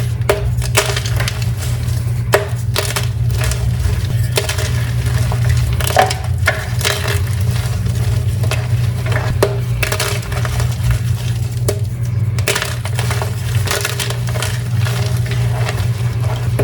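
Blocks of gym chalk being crushed, a dense run of crunchy, crumbling crackles with sharper snaps now and then, over a steady low hum.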